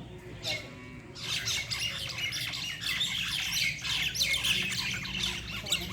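Several birds squawking and chirping over one another in a busy, continuous squabble, quieter in the first second and thicker after that.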